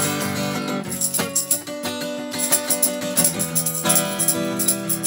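Steel-string acoustic guitar strummed in a steady rhythm with changing chords, a short instrumental stretch with no singing. A small hand shaker rattles along in time.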